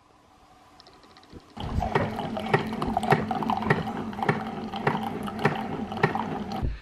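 Single-serve pod coffee maker brewing a cup: its water pump runs with a steady pulsing, about two beats a second, as hot water is forced through the pod. It starts about a second and a half in and cuts off near the end.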